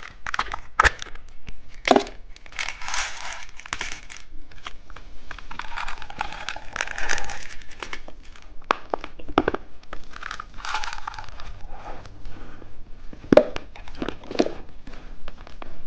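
Crinkling and tearing of a plastic candy wrapper, with many sharp clicks and taps as a phone-shaped candy is unwrapped and handled.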